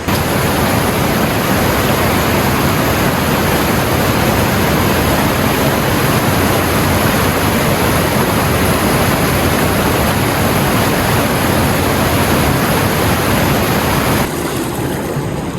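Glacier-fed water channel rushing steadily, a loud even roar of flowing water that turns slightly duller about a second before the end.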